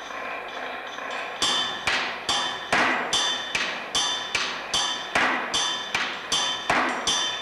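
Iron sculpture parts struck with a small hammer, each blow leaving a bright metallic ring. The strikes start about a second and a half in and go on steadily at two to three a second, with faint ringing before them.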